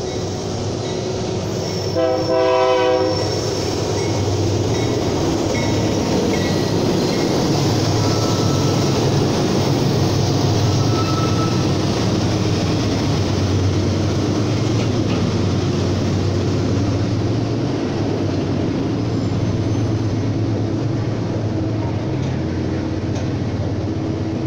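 A train running with a steady low rumble as it arrives, its locomotive horn sounding one blast of about a second a couple of seconds in.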